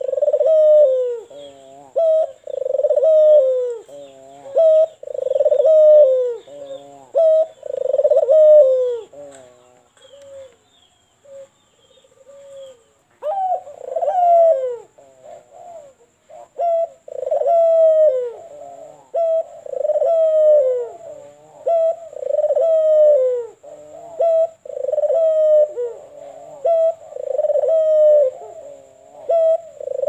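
White Barbary dove (puter putih) cooing over and over in a steady run of coos, about one a second, with a short lull about a third of the way in before it starts again.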